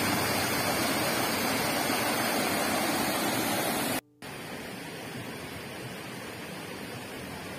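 Steady rush of a multi-tiered waterfall. About four seconds in it cuts off abruptly for an instant, then a quieter, steady rush of flowing river water follows.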